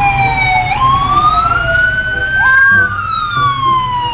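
Police vehicle sirens wailing in slow rising and falling sweeps, more than one siren overlapping, over a low rumble.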